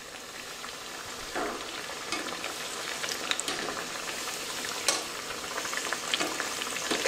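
Chana dal vadas sizzling as they deep-fry in hot oil in a steel kadai, while a wire spider skimmer stirs and turns them, with a few light clicks as it touches the pan.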